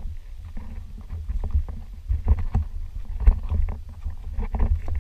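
Low, gusty rumble of wind and handling on a hand-held camera's microphone, with scattered light knocks and scuffs of footsteps on stony ground, the sharpest knock about three seconds in.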